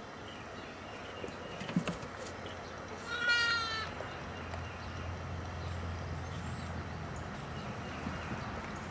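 A Boer goat kid bleats once, about three seconds in: a short, quavering bleat of under a second.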